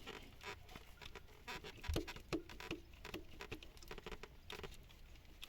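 Faint, irregular small clicks and taps of a greased CV joint being worked by hand onto the driveshaft splines, with one firmer knock about two seconds in; the joint is not yet going on.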